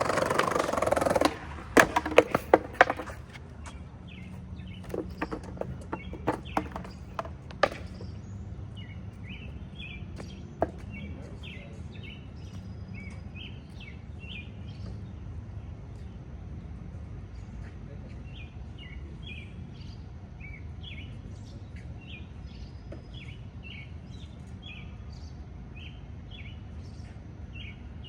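Skateboard wheels rolling on pavement, then the board clattering and knocking sharply several times over the next few seconds. After that, small birds chirp repeatedly over a faint low hum.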